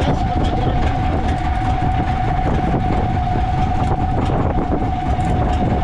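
Boat engine running steadily: a low rumble with a rattling clatter and a steady whine over it.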